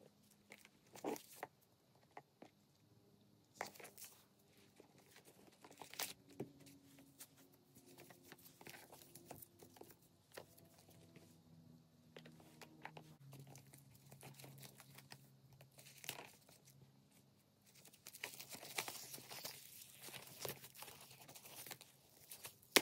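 Plastic wrapping and tissue paper crinkling and rustling as a leather handbag is handled and unwrapped, with sharp crackles at intervals. Near the end there is a denser stretch of rustling as tissue paper is pulled out of the bag.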